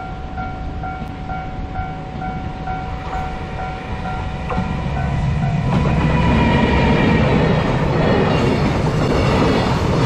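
Japanese level-crossing alarm dinging about twice a second as a freight train hauled by an EF210 electric locomotive approaches. From about five seconds in, the locomotive and its container wagons pass close by with a loud rumble and wheel clatter over the rails, drowning out the alarm.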